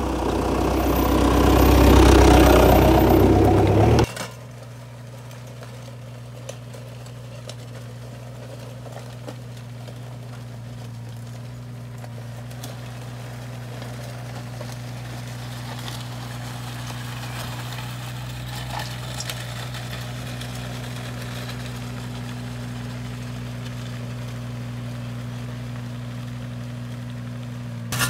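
Loud mechanical noise for about the first four seconds, which cuts off abruptly, followed by a machine engine idling with a steady low hum.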